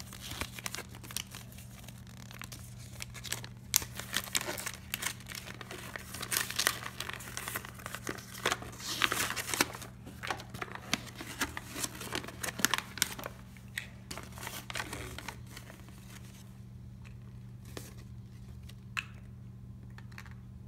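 Glossy paper leaflet being unfolded and handled, crinkling and rustling in quick bursts, dying down to a few rustles in the last few seconds.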